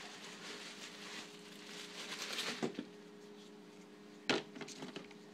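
Rustling of packaging as plastic Seachem bottles are taken out of a shipping box, with a sharp knock about four seconds in and a few lighter clicks after, as bottles are handled and set down.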